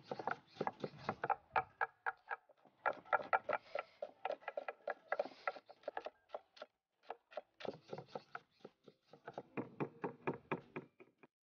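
Cleavers chopping rapidly on a wooden cutting board, mincing garlic, chilies and other aromatics: quick runs of short knocks, with a brief pause a little past the middle.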